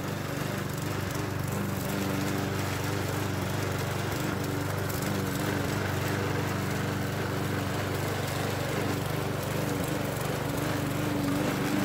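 Petrol walk-behind rotary lawn mower running steadily as it is pushed along, cutting grass at the lawn's edge.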